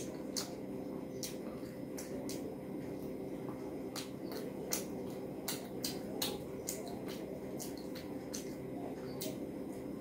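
Close-up eating sounds: irregular wet mouth smacks and clicks of chewing rice and curry, with soft squishing as fingers mix rice and curry on the plate. A steady low hum runs underneath.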